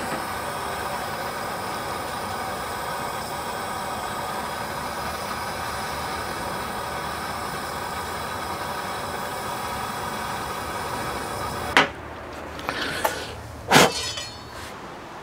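Handheld torch lighter's jet flame hissing steadily as it is held to the wood pellets in a smoke tube, cut off with a click about twelve seconds in. A few short puffs of breath follow near the end, blowing the flame out of the lit pellets so they smoulder.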